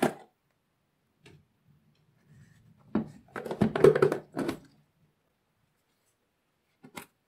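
Plastic food containers and their lids being handled: sharp clicks and hollow knocks of plastic on plastic and on the table, thickest in a cluster about three to five seconds in, with a few lone clicks before and after.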